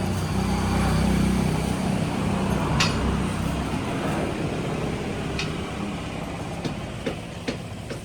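Motorcycle engine running, swelling louder about a second in and then easing back, with several sharp clicks in the second half. The owner takes the engine's unusual noise for a sign of a serious engine problem.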